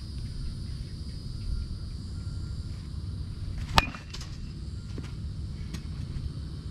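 A baseball bat striking a ball off a batting tee: one sharp crack a little under four seconds in, with a short ring after it. Steady low outdoor noise underneath.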